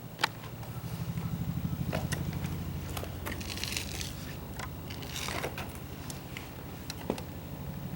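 Kawasaki Z750 Spectre's inline-four engine turned over by its electric starter, a steady rhythmic churning with scattered clicks and rattles. The engine cranks but does not start: the bike is a non-runner.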